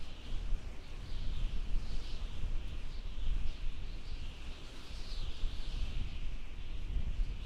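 Howling desert wind: a gusting low rumble under a high, wavering whistle-hiss that swells and fades.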